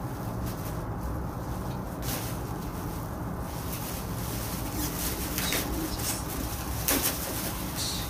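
Plastic bag rustling and crinkling in a few short bouts, loudest about seven seconds in, over a steady low hum.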